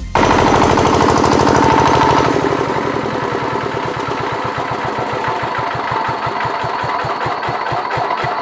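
Single-cylinder diesel generator engine running on kerosene under heavy load, with a steady, rapid firing beat. It is loudest for the first couple of seconds, then settles slightly quieter and runs smoothly, without trouble.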